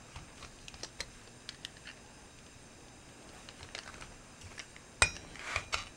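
Faint, scattered metal clicks and taps as parts of a chrome hi-hat stand are handled and set onto a small steel anvil block, with one sharper knock about five seconds in.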